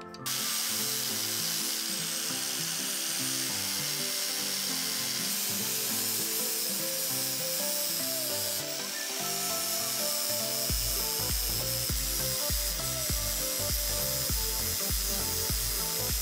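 Angle grinder with an abrasive disc grinding down the rivets on a stock Yamaha YZ250 clutch basket to free the primary drive gear. It runs steadily throughout, a high whine over the hiss of the disc on metal.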